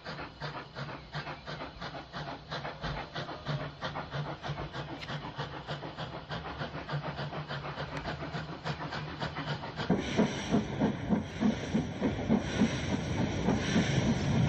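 Steam locomotive working hard, a quick, even run of exhaust beats with steam hiss that grows steadily louder. About ten seconds in, the sound changes to louder, heavier beats with rail clatter.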